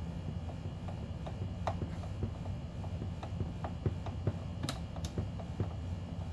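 A string of light clicks and taps, a few a second, with two sharper ticks near the end, from small tools and plastic HVAC housing parts being handled during reassembly. A steady low hum runs underneath.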